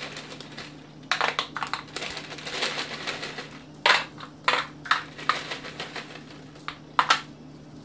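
Chocolate chips shaken from a crinkling plastic bag and pattering onto an aluminium foil pan. A crackly stretch is followed by a few sharp separate clicks.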